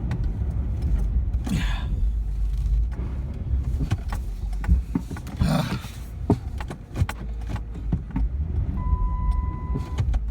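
Car engine running, heard from inside the cabin as the car is rocked back and forth in deep snow, with scattered knocks and two brief rushing swells. A steady electronic warning beep sounds for about a second near the end.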